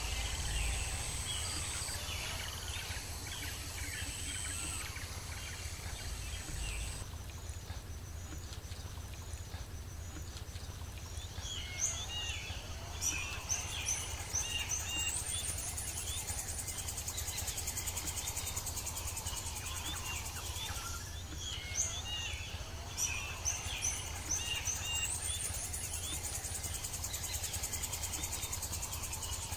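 Woodland birds chirping and calling in many short notes over a steady high insect drone, with a rising high call heard twice.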